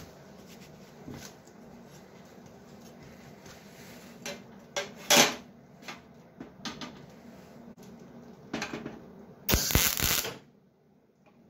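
Sheet-metal patch clinking and knocking as it is fitted into a steel tractor cab door frame. Near the end comes a brief sputter and then a short, loud burst of MIG welding under a second long as the patch is tacked in.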